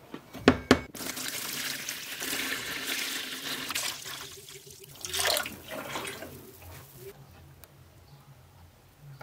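Two sharp knocks, then water running and splashing for about six seconds before it stops suddenly.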